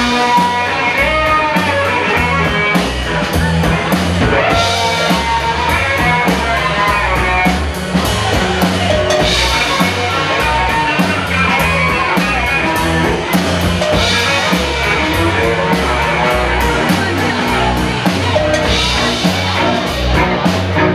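Live rock band playing an instrumental passage: a bowed cello carries gliding melody lines over electric bass and a drum kit keeping a steady beat.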